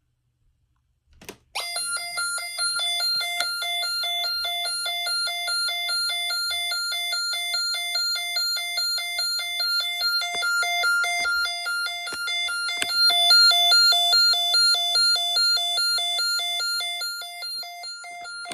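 A Snap Circuits model fire alarm system sounding: after a click, its sounder gives a fast-pulsing electronic alarm tone that keeps going, easing slightly near the end.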